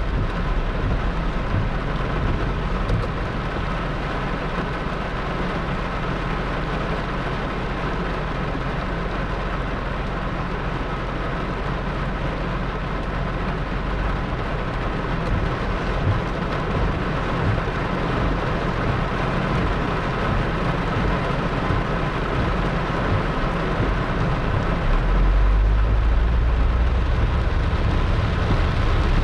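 Heavy rain pouring steadily in a thunderstorm downpour, with a low rumble swelling about 25 seconds in.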